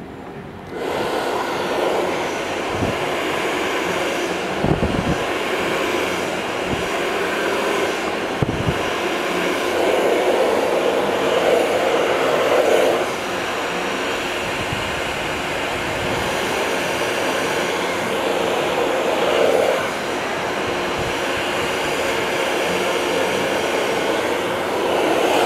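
Handheld hair dryer blowing, switched on about a second in and running until the very end, its rush louder in stretches, with a few low thumps.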